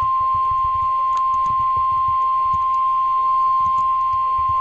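NOAA Weather Radio warning alarm tone, the steady 1050 Hz attention signal of an Emergency Alert System alert, held as one unbroken beep that announces the warning to follow. Faint radio static crackles under it.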